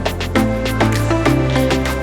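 Upbeat background music with a steady drum beat, bass line and sustained keyboard chords.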